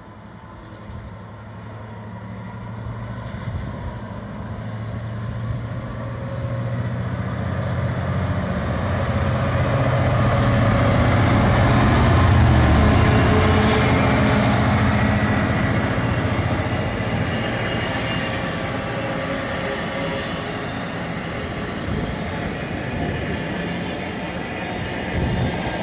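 Class 66 diesel freight locomotive, its EMD two-stroke V12 engine getting steadily louder as it approaches, and loudest as it passes close by about halfway through. Then the wheels of the container wagons roll past.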